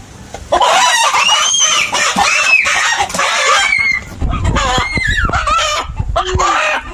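Rooster crowing loudly, two long crows in a row, the first starting about half a second in.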